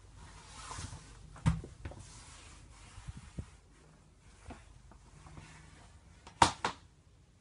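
Knocks, clicks and rubbing from someone moving through a small caravan bedroom: a sharp knock about a second and a half in and a louder double click near the end, with soft rubbing between.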